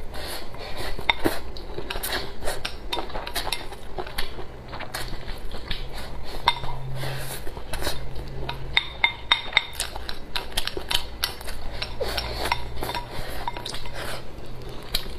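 Close-up eating: wooden chopsticks repeatedly clicking and scraping against a ceramic bowl held to the mouth, with the mouth sounds of someone eating shredded kelp salad.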